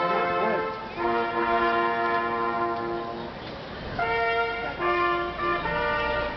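Brass band playing a slow tune in long held chords, the notes changing every second or so with short breaks between phrases.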